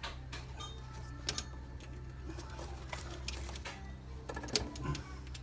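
Scattered light metallic clicks and taps from burner parts being handled and fitted back onto the oil boiler, over a steady low hum.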